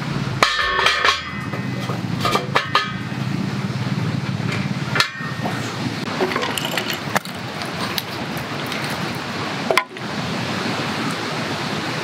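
A steel fire pit clanks with a brief metallic ring as it is set down, about half a second in. Scattered sharp knocks and scrapes from fire-lighting work follow.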